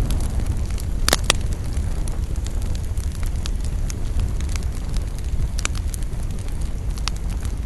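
Bonfire burning with a steady low rumble and scattered sharp crackles and pops, the loudest pair of pops about a second in.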